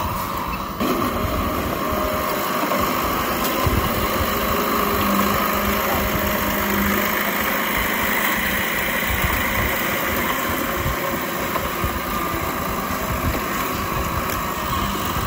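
Diesel engine of an old Komatsu D31P crawler bulldozer running steadily as the machine pushes soil, growing louder about a second in.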